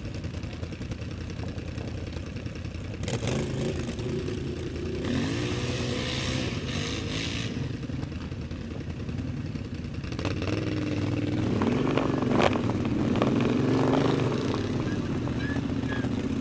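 ATV (quad bike) engines running near idle, then revved up and back down in two spells, about three seconds in and again about ten seconds in. A brief hiss sits between them, and there is a single sharp knock during the second spell.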